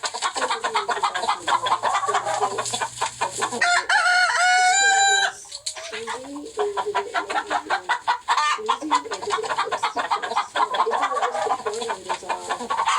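Chickens clucking rapidly and continuously, with one rooster crow of about a second and a half about four seconds in.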